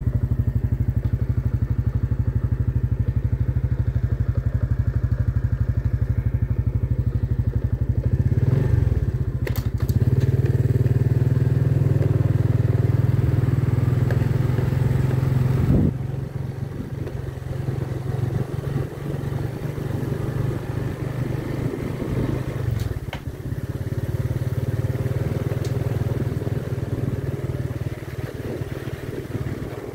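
Engine of a small vehicle running steadily as it rides along a farm track, a low throbbing hum. It gets louder about eight to ten seconds in and drops back a little past halfway, with a few knocks and rattles from the ride.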